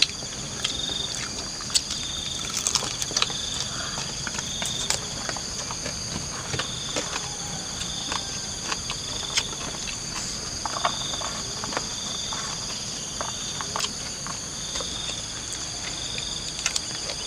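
Insect chorus of crickets or cicadas: a steady high buzz with a pulsing trill that comes and goes every second or so. Scattered short clicks and smacks come from people eating with their hands off a banana leaf.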